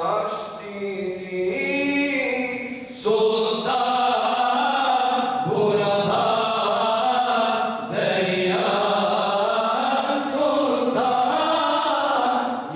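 Group of imams chanting a mevlud, unaccompanied male voices: one voice leads alone at first, and the others join in unison about three seconds in.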